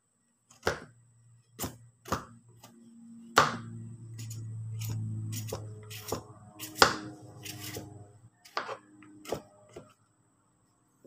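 Hand-held shredding peeler scraping strips off a young green papaya, in sharp, irregular strokes about once a second. A low hum runs underneath from about three to eight seconds in.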